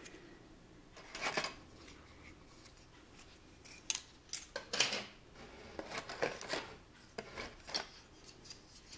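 Plastic model-kit parts and their plastic bags being handled off to the side: a series of short crinkling and scraping sounds, loudest around the middle.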